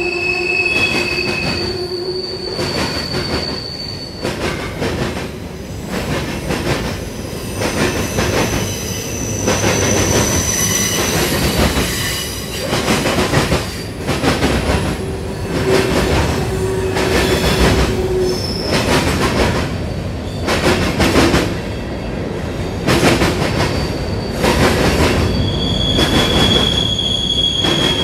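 Freight cars of a CSX manifest train rolling past: wheels clacking over rail joints, with high-pitched wheel squeal that comes and goes in several few-second stretches.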